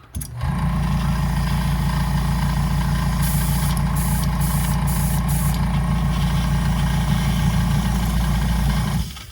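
Spray-Work Power Air Compressor motor running with a steady hum, switching on just after the start and cutting off suddenly about nine seconds in. Around the middle come several short bursts of hissing air.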